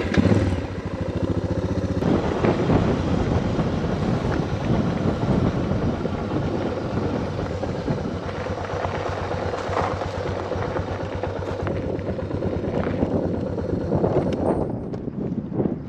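Motorcycle engine running steadily as the bike rides along a campground road, the sound getting a little quieter near the end.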